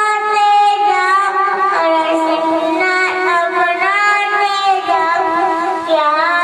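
A young boy singing a naat, a devotional Islamic hymn, solo and unaccompanied into a microphone, holding long notes that bend between pitches.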